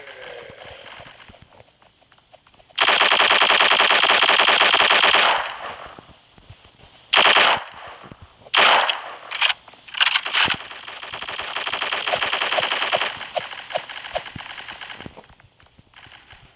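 Rapid automatic machine-gun fire: a long burst of a couple of seconds, then several short bursts, then another long burst.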